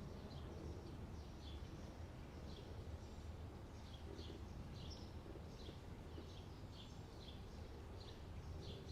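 Small birds chirping outdoors: many short, high, slightly falling calls, one or two a second, over a faint low steady rumble.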